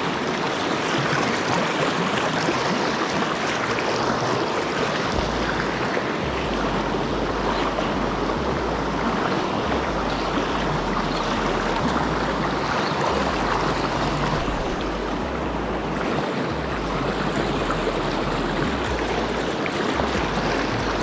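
Mountain river water rushing over rocks in shallow riffles, a steady even wash. A low rumble comes and goes from about five seconds in.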